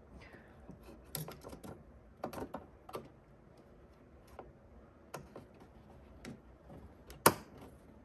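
An XPG RAM stick being lined up and pressed into an Alienware Aurora desktop's memory slot: scattered small plastic clicks and taps, then one sharp click near the end as the slot's latch snaps shut and the stick seats.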